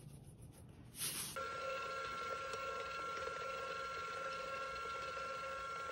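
Electric stand mixer switching on about a second in and then running steadily with a flat beater in a stainless steel bowl, a constant motor whine as it mixes bread dough.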